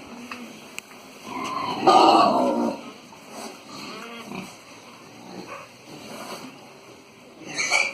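Pigs calling, with one loud call about two seconds in, quieter calls scattered after it, and another short call near the end.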